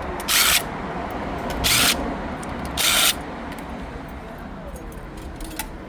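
Cordless power screwdriver run in three short bursts, about a second apart, driving out the screws that hold the metal bracket on a factory car radio.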